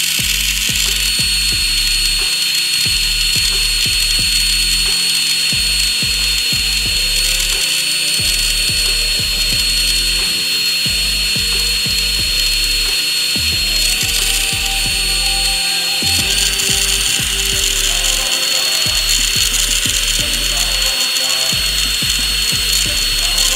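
Electric drill running steadily with a felt buffing wheel in its chuck, a small metal grinder part held against the spinning pad to polish it. The motor gives a steady high whine that lifts slightly about fourteen seconds in.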